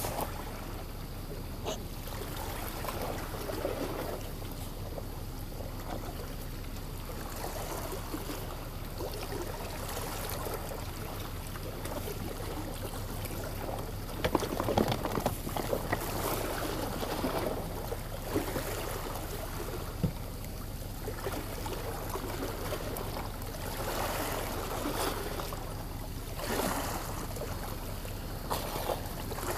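Seawater lapping and sloshing against the shore rocks, swelling irregularly every few seconds, with a few short knocks around the middle.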